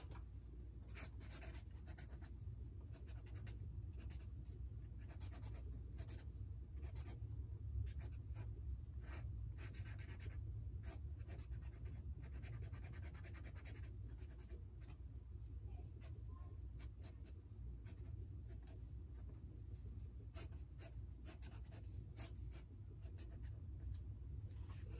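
Ink pen scratching across sketchbook paper in many quick, short hatching strokes at irregular spacing, over a faint steady low hum.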